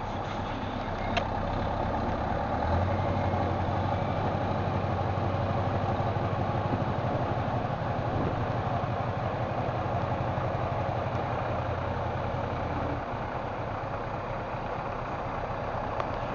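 Scania R500 truck's V8 diesel engine running at low revs as the truck moves slowly, a steady low engine note. The note grows louder about three seconds in and drops back a few seconds before the end.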